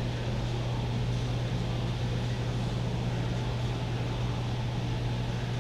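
Steady low machine hum with an even hiss, like a running fan or air handler: the gym's room tone, with no distinct impacts.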